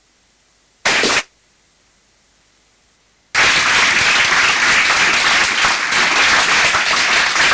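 Audience applauding, starting suddenly about three seconds in and carrying on steadily. Before it there is only faint hiss, broken by one short, loud burst about a second in.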